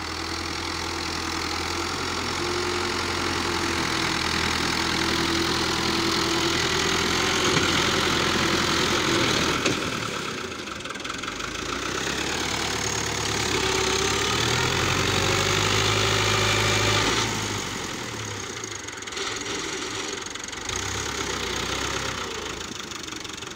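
Fiat 640 tractor's diesel engine running under varying load while working a rear blade through sand, its revs rising and falling. The engine note is strongest for the first half and again in the middle, and eases off noticeably near the end.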